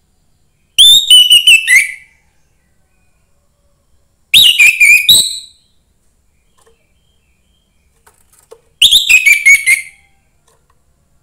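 Young wild-caught orange-headed thrush singing three loud phrases about four seconds apart. Each phrase is a fast run of whistled notes, about a second long, that starts high and falls in pitch.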